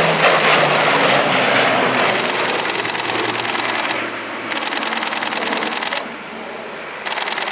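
Northrop Grumman E-2 Hawkeye's twin turboprops passing, the engine drone falling in pitch as it goes by and fading over the first few seconds. Then two rapid bursts of a camera shutter firing in continuous mode, each lasting about a second and a half.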